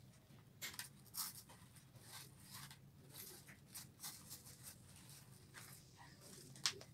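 Faint scratchy rustling of artificial flower stems and leaves being pushed into floral foam in a woven twig basket, with a sharp click near the end.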